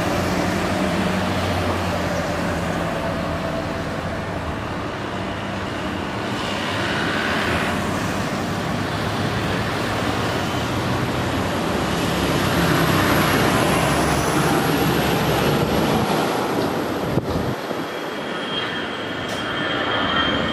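Airbus A320 jet engines at takeoff thrust: a steady, loud roar as the airliner rolls down the runway and climbs out. The roar swells past the middle, breaks off sharply for a moment, then returns with a high steady fan whine on top.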